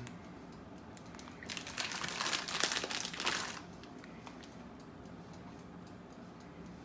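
Plastic packaging crinkling and rustling as it is handled, for about two seconds starting about one and a half seconds in.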